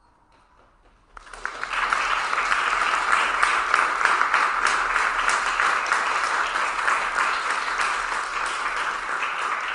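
Audience applauding, starting suddenly about a second in and holding steady, greeting the performers as they come onstage.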